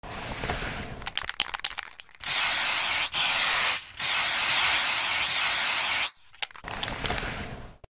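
Aerosol spray-paint can sound effect. A few sharp clicks in the first two seconds, then a long hiss of spray broken twice by brief gaps, and a shorter, softer hiss near the end.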